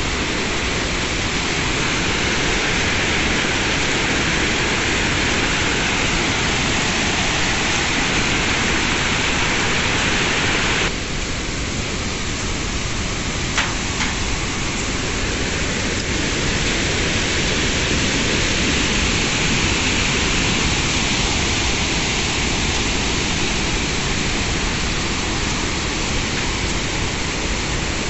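Large waterfall's rushing water, a steady even noise with no let-up; the level dips slightly about eleven seconds in, and a single brief click follows a couple of seconds later.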